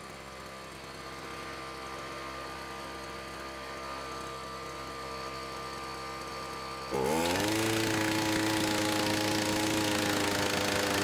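Farmertec G660 two-stroke chainsaw engine driving a railway impact wrench: it idles steadily, then about seven seconds in it throttles up with a quick rising pitch and runs flat out, much louder, as the wrench works on the torque tester.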